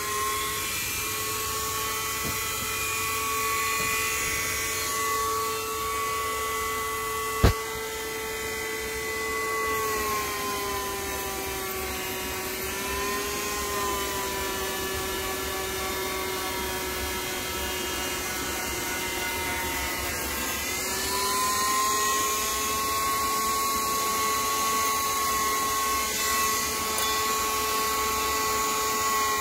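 An electric power tool's motor running steadily with a whine that sags and recovers slightly in pitch, as when it is loaded, with a single sharp click about seven seconds in.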